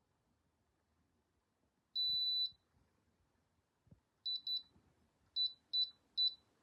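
High-pitched electronic beeps from the Dreo tower fan's controls: one long beep about two seconds in, then short beeps in two quick groups near the end.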